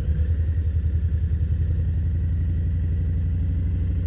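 Harley-Davidson Softail Low Rider's Milwaukee-Eight V-twin engine running steadily at low revs, with a rapid, even pulsing beat.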